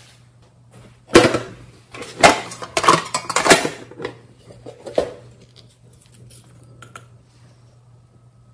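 A small metal tin case being handled, giving a quick run of sharp clacks and clinks between about one and five seconds in.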